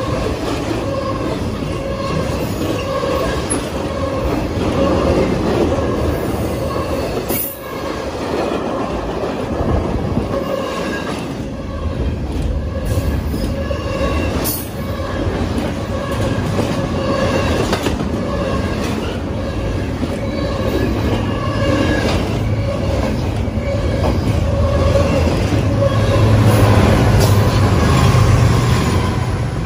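Double-stack intermodal freight train rolling past close by: a steady rumble of container flatcars on the rails, with a steady ringing squeal from the wheels and a rapid clatter of wheels over the track. In the last few seconds a BNSF diesel locomotive passes, adding a deeper engine rumble.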